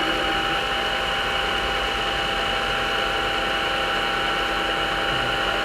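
Milling machine spindle running steadily with a center drill in a precision chuck, spotting a hole in a model radial engine piston; an even motor whine with no change in pitch.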